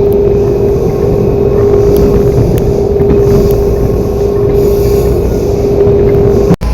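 Metro car traction drive under power, heard aboard: a steady tone over a heavy low rumble, with the unusual 'roar' (ronco) that comes from the car's reduction gearbox along with the traction motor and inverter sound. It breaks off abruptly near the end.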